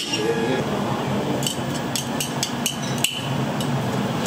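Restaurant kitchen work: a run of sharp knocks and clinks of utensils and dishes, clustered in the middle, over a steady kitchen hum.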